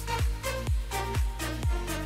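Background electronic dance music with a steady kick drum beat, about two beats a second, under sustained synth chords.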